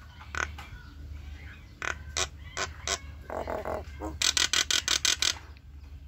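Common myna calling: a few single sharp notes, a harsh grating chatter about three seconds in, then a fast run of about eight loud sharp notes near the end.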